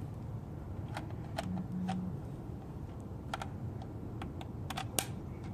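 Light plastic clicks and taps from an oil bottle being handled and tipped into a funnel on the engine, scattered and uneven, the sharpest near the end, over a low steady background hum.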